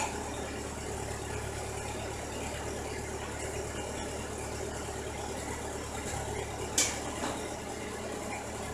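An engine idling steadily, with one sharp click about two-thirds of the way through.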